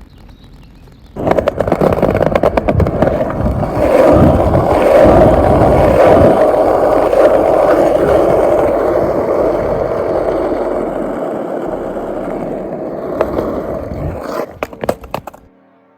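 Skateboard wheels rolling over hard ground: a loud, steady rolling rumble full of rapid clicks. It starts about a second in and slowly eases off, ending in a few sharp clacks just before it stops.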